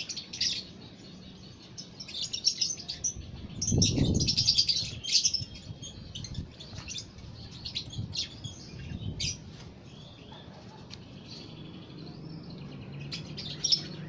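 Fischer's lovebird chattering in bursts of rapid, high twittering. A brief low rumble about four seconds in is the loudest moment.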